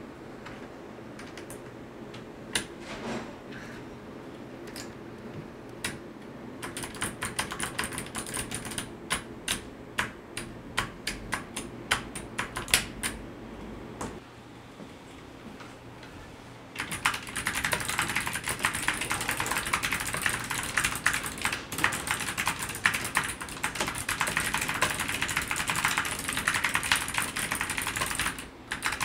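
ABKO Hacker K8300 mechanical keyboard with clicky Kailh optical switches being typed on. Scattered single keystrokes come first, then a run of distinct clicks, a short pause, and fast continuous typing through the last twelve seconds or so.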